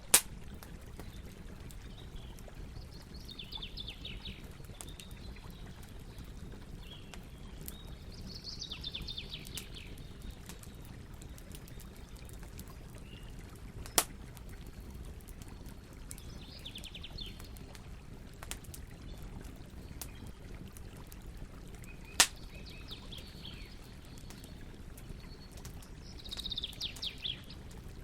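Campfire burning with a steady low noise and three sharp wood pops, while a bird sings short trilled phrases every few seconds.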